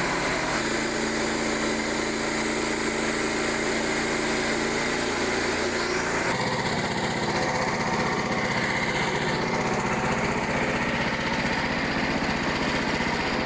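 Frontier OS27 portable band sawmill running steadily at speed, its small gas engine driving the band blade through a white pine log. The engine note shifts about six seconds in.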